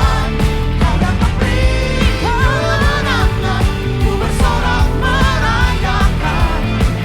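Live worship band playing an upbeat rock-style song, with a steady drum beat under a melody that slides up and down.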